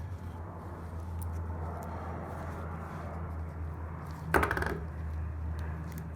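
Small metal parts clinking as they are handled, with one short, louder metallic clatter a little over four seconds in, over a steady low hum.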